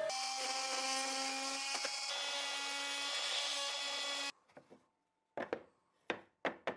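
CNC router spindle running steadily as it machines a new MDF wasteboard slat: a whine with several pitches over a cutting hiss. It stops abruptly about four seconds in, followed by a few light wooden knocks and taps as the slat is handled.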